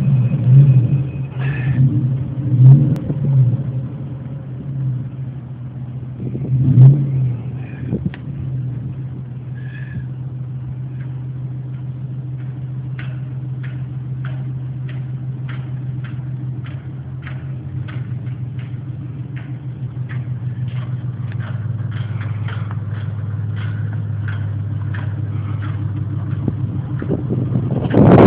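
A steady, low engine hum. Knocks and bumps come over it in the first several seconds, a faint regular ticking at about two a second runs through the second half, and a loud rushing burst comes at the very end.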